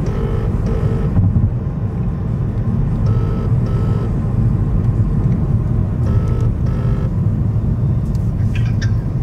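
Telephone ringback tone on speakerphone: three double rings, about three seconds apart, over the steady low road rumble inside a moving car's cabin.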